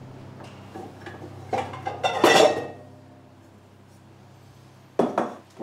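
Kitchenware clattering and clinking, with the loudest clatter about two seconds in and a sharp knock near the end.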